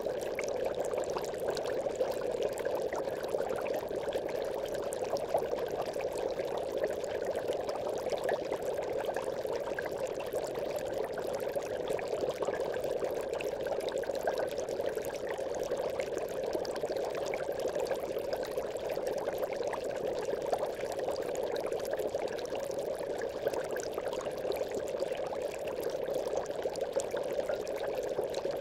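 Aquarium bubbles rising in a continuous, even stream, a steady bubbling that does not change.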